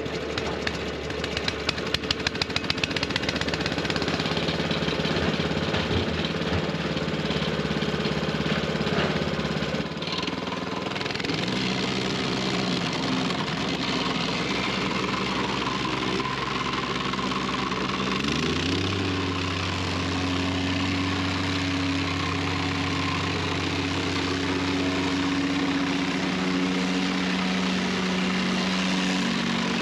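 Mustang gasoline plate compactor running, its engine driving the vibrating plate over loose crushed rock to compact the fill. The engine note pulses for the first few seconds, then steps up in pitch about ten seconds in and again about eighteen seconds in as the throttle is opened further.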